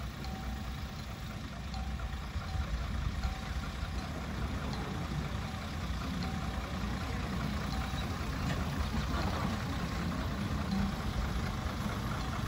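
Engine of a small trolley-train locomotive running steadily as it pulls an open passenger car, growing somewhat louder in the second half as it approaches.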